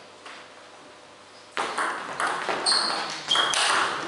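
Table tennis rally: a celluloid ball clicking sharply off the bats and the table in quick succession, some hits leaving a brief high ping. A single soft tap comes near the start, then the fast exchange begins about a second and a half in.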